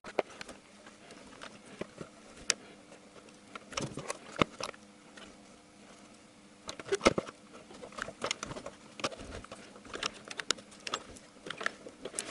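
Irregular light clicks and knocks of a plastic air-intake housing and its fittings being handled and pushed into place on the engine, with a few sharper knocks about four and a half and seven seconds in.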